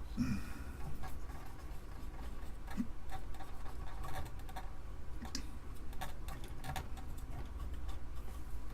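Light scratching and scattered small clicks of rust and flaky residue being wiped off a circuit board with alcohol.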